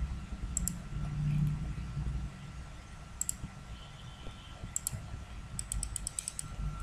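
Computer mouse button clicks, a few single or paired clicks and then a quick run of clicks near the end, over a low steady hum.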